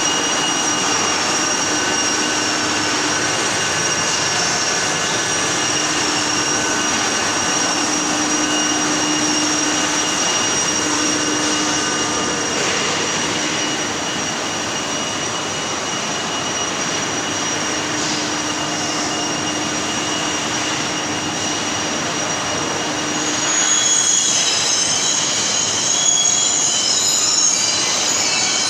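High-frequency inverter welding machine in use: a steady hiss with high whining tones. About 23 seconds in it gets louder and turns crackly and uneven.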